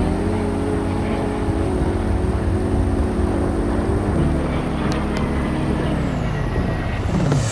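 Jet airliner engines running, a steady high whine over a low rumble; the whine and the engine tones slide down in pitch during the last second or two as the aircraft passes.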